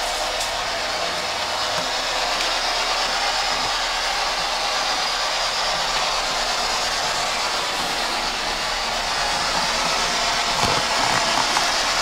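Steady, loud hiss of static from an electronic listening device, left running so that any voice might come through it.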